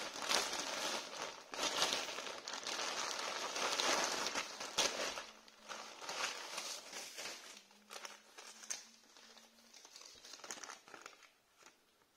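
Plastic courier mailer bag being crinkled and rustled by hand as it is opened. The crinkling is loud and dense for about the first five seconds, then thins to quieter, scattered rustles that fade near the end.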